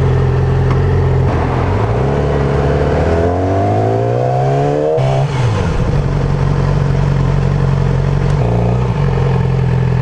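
Sport motorcycle engine heard from the rider's seat: running at low revs, then revving up steadily as the bike accelerates from about a second and a half in, dropping back sharply near the halfway point, then holding a steady low run with a brief change in pitch near the end.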